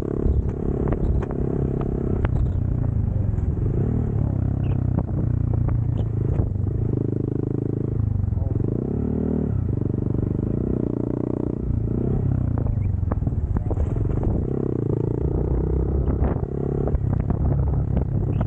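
Motorcycle engine running under way, its note rising and falling with the throttle, dipping and climbing again about halfway through, with scattered clicks and knocks over it.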